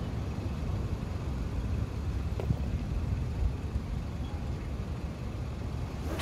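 Steady low outdoor rumble, with a single light click about two and a half seconds in and a quick swish of a long surf-casting rod being whipped overhead at the very end.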